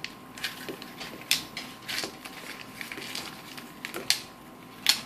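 Irregular sharp clicks and paper rustling as Mentos candies are loaded into a tube of rolled construction paper and pushed down with a marker. The sharpest clicks come about a second in and just before the end.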